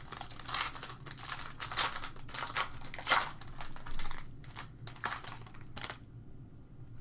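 Trading card pack wrapper being torn open and crinkled, an irregular crackling rustle that stops about a second before the end.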